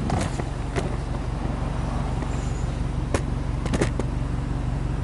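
Subaru Impreza WRX STI's turbocharged flat-four boxer engine idling steadily, heard at the tailpipe, with a few light clicks over it.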